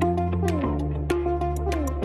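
Instrumental background music with a steady ticking beat, held bass notes and a melody whose notes slide downward.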